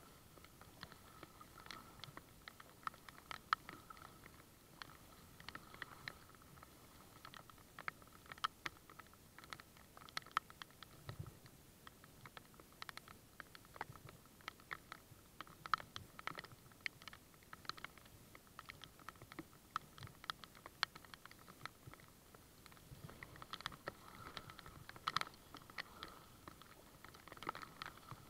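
Faint, irregular ticking and pattering of raindrops striking the kayak and camera, many small hits a second.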